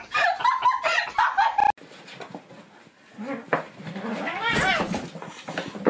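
A cat meowing: one long call that rises and then falls in pitch, about three-quarters of the way through. Near the start, louder voice-like sounds cut off abruptly.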